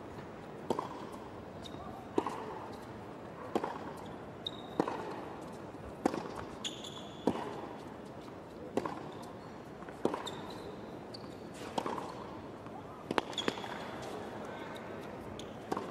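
Tennis ball being hit back and forth by racquets in a baseline rally on a hard court: a sharp hit about every second and a half, about a dozen in all, with a few short high squeaks in between.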